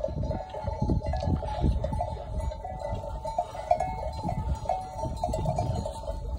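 Bells on a flock of sheep ringing and clanking without a break, several bells at different pitches jangling together, over a gusty low rumble of wind on the microphone.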